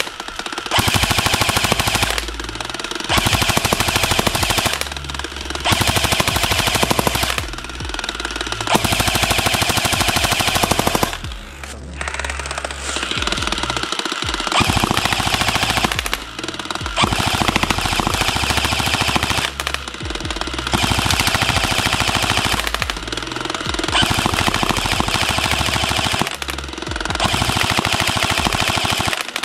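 Cybergun FN Herstal MK46 airsoft electric gun (AEG), built by A&K, firing full-auto bursts from its electric gearbox on an 11.1 V LiPo battery. It gives about a dozen bursts of rapid, even clicks, each one to two seconds long, with short pauses between them.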